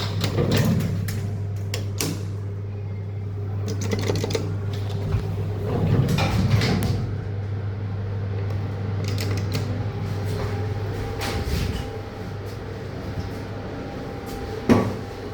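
Old 1991 Fujitec elevator in use: a steady low hum with scattered clicks and knocks, and one sharp knock near the end.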